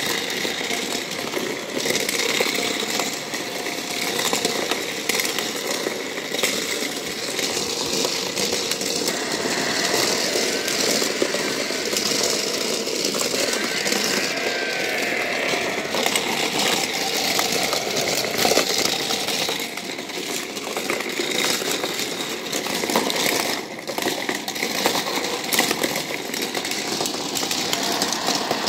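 Motor of a plastic toy raceway playset running steadily as its turntables spin, with metal diecast cars clattering against each other and the track walls in many small clicks and knocks.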